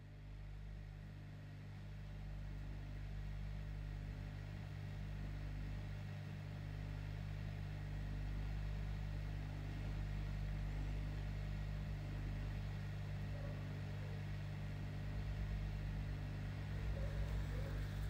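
Hot air rework station running steadily: a blower hum with an even rush of hot air over the circuit board, growing a little louder over the first few seconds.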